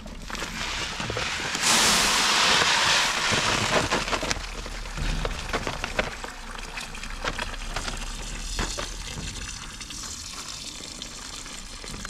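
Water from a garden hose running into a plastic tub as uncooked rice is poured in from a bag. A loud hiss of pouring grains and water rises about two seconds in and lasts about two seconds, then settles into steady splashing and trickling onto the rice.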